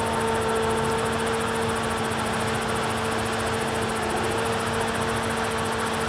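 Claas Lexion 600 combine harvester running while cutting canola: a steady mix of engine and threshing machinery noise with a constant hum underneath.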